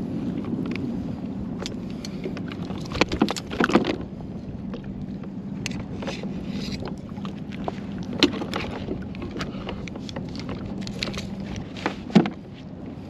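Fishing kayak on the water: a steady rush of water and wind, with scattered knocks and clicks of gear against the hull. They come in a cluster about three to four seconds in and singly about eight and twelve seconds in.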